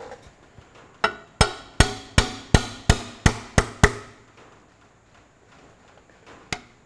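A hammer taps steel about nine times, sharp metallic strikes roughly three a second with a brief ring after each, then stops. It is striking the top of a grey Ferguson tractor's kingpin and stub-axle assembly to knock back straight a kingpin that has gone crooked while being drawn into its bush.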